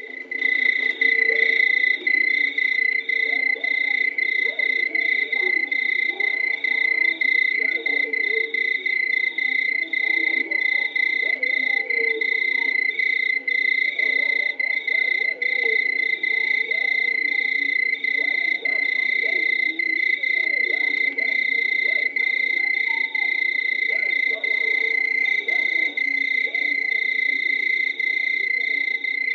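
Night chorus of frogs and insects from a vintage sound-effects record of an African night: a loud, unbroken high insect trill with many frogs croaking beneath it. It fades in at the start and then holds a steady level.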